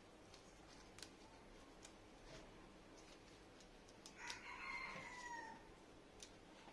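A rooster crowing once, faint, starting about four seconds in and lasting about a second and a half, its pitch dropping at the end. Scattered faint clicks from herbs being handled are heard throughout.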